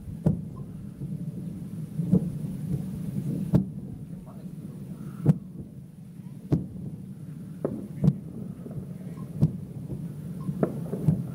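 Fireworks shells bursting, about ten sharp bangs roughly a second apart at uneven intervals, each trailing into a low rumbling echo.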